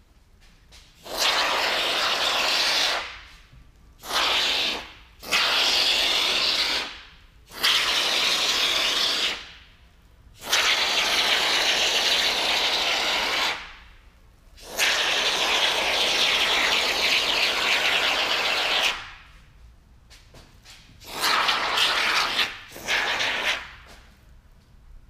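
Aerosol can of expanding spray foam hissing out through its straw applicator in about eight bursts, each one to four seconds long, with short pauses between.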